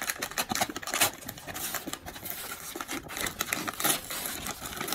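Brown kraft-paper mailer bag crinkling and crackling as it is handled and pulled open by hand, a dense run of rustles with a couple of louder crackles, about a second in and near the end.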